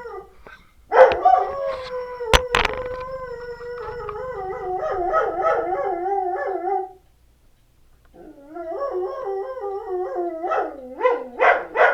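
A pet dog howling: a long, wavering howl, a short pause, then a second howl that breaks into quick short yips near the end. Two sharp clicks sound about two and a half seconds in.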